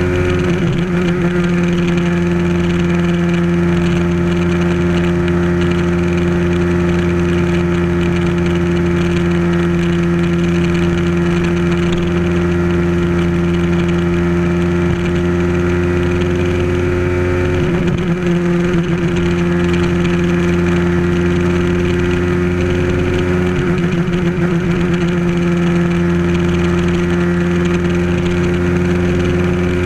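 Bajaj Pulsar motorcycle's single-cylinder engine running at a steady cruising speed, heard from a camera on the front of the bike, with wind and road rush. The engine note dips and settles about eighteen seconds in and again about twenty-four seconds in.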